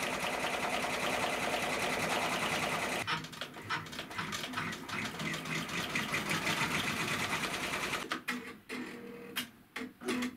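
Baby Lock Array six-needle embroidery machine stitching rapidly on a cap frame, a fast, even rattle of the needle. The sound changes abruptly about three seconds in, and for the last couple of seconds the stitching gives way to separate clicks with short pauses.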